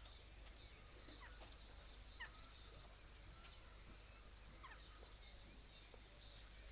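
Faint bird calls: scattered short, falling chirps over a low steady background hum, with no stork bill-clattering.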